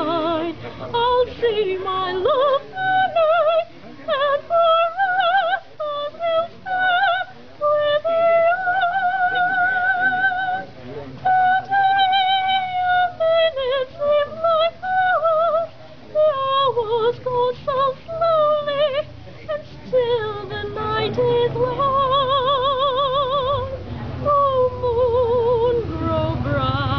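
A woman singing solo, with wide vibrato on long held notes and short breaths between phrases. A low steady rumble sits underneath in the second half.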